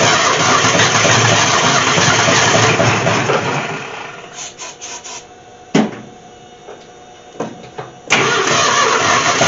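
Ford Falcon engine running on fuel fed by hand with no fuel system fitted, then dying away about four seconds in as the fuel runs out, with a few coughs and a sharp pop. It is running again loudly near the end.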